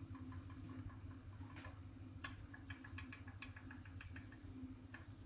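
Flip clock's mechanism clicking faintly: scattered ticks, then a quick run of about seven clicks a second from about two seconds in, over a low steady hum.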